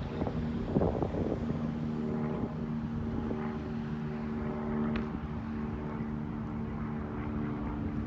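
Wind buffeting the microphone, with a steady low hum of several held tones underneath from about half a second in.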